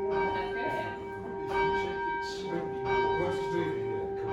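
Rope-rung church tower bell, swung on its wheel so that the clapper strikes it about every second and a half: three strokes, with the bell's tone ringing on steadily between them.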